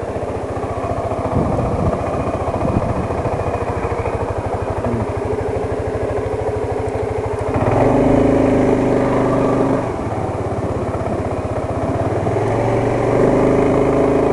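Suzuki Skywave 250 Type M scooter's single-cylinder engine running while riding. The engine note grows louder for about two seconds about halfway through and again near the end.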